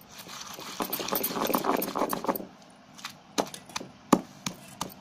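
Stone pestle pounding raw green tamarind with salt in a granite mortar (rolu): a stretch of rapid rough crushing and scraping, then separate dull knocks about three a second.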